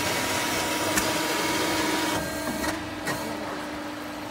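Puffed rice cake machine running: a steady mechanical hum with a held tone, and a hiss that drops away about two seconds in. One sharp click comes about a second in.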